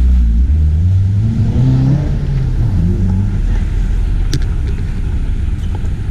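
Low rumble of street traffic, with a vehicle engine rising in pitch over the first two seconds. A single sharp click comes about four seconds in.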